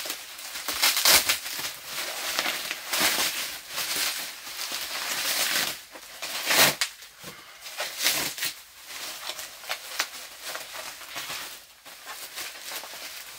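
Bubble wrap and plastic packaging film crinkling and rustling as it is pulled and unwound by hand, in uneven spells with a few sharper crackles.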